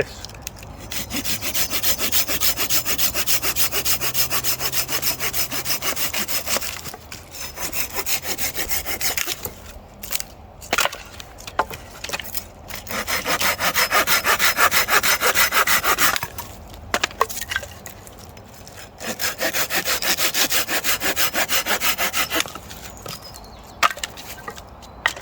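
Silky SuperAccel 21 folding pull saw cutting through wood, its teeth rasping in quick, even strokes. It saws in four spells with short pauses between them.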